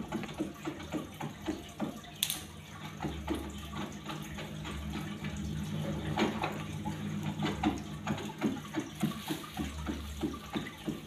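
Water trickling and bubbling, a dense run of small irregular splashes and crackles, over a steady low hum.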